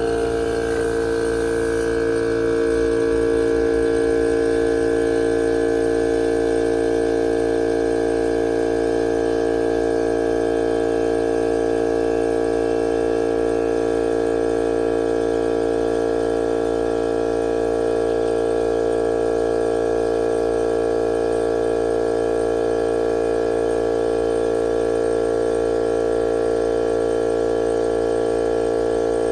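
Portable air compressor running steadily, inflating a car tire, with an even, unchanging hum.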